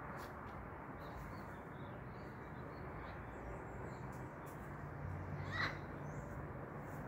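Wild parrot giving one short, harsh call about five and a half seconds in, over steady background noise with a few faint bird chirps.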